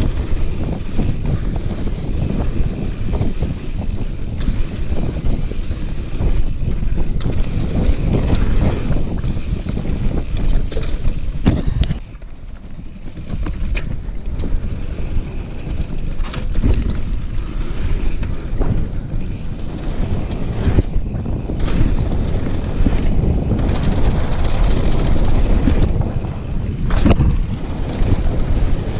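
Wind rushing over the microphone of a mountain bike descending a dirt trail, with tyre rumble on the ground and a few sharp knocks over bumps. It eases for a couple of seconds around the middle, then picks up again.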